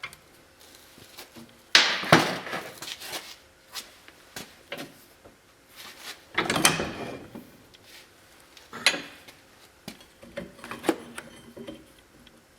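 Irregular clanks, knocks and scrapes of metal parts and tools being handled while an axle shaft is set in a vise. The two biggest come about two seconds in and just past the middle, with smaller knocks near the end.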